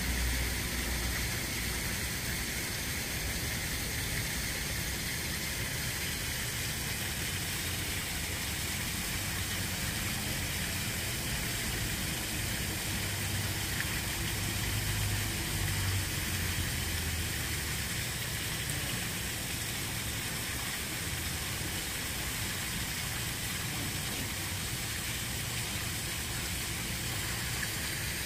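Steady outdoor background noise: a low rumble with an even hiss over it, swelling slightly about halfway through.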